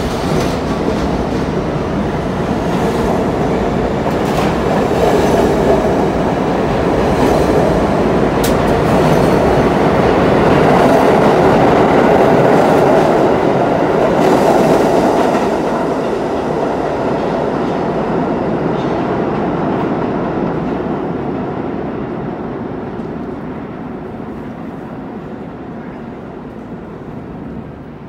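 Budd R32 subway train pulling out along the station platform and picking up speed, its wheels clattering over the rail joints. The sound grows louder to a peak in the middle, then fades away as the last car leaves into the tunnel.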